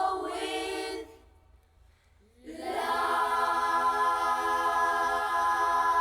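Children's choir singing a cappella; the singing breaks off about a second in, then the voices come back in on one long held chord.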